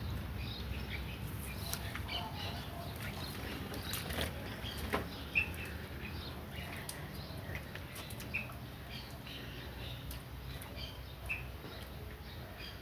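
Heavy rain falling, heard as a steady low rush with scattered sharp taps of drops. Short high chirps come every second or so.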